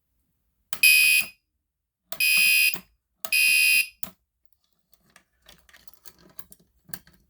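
Smoke alarm sounding three shrill piezo beeps in the temporal-three evacuation pattern, then a few faint clicks.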